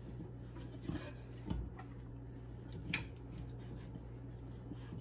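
Quiet handling of a sausage stuffer and a stuffed casing: a few faint soft knocks and squishes over a low steady hum.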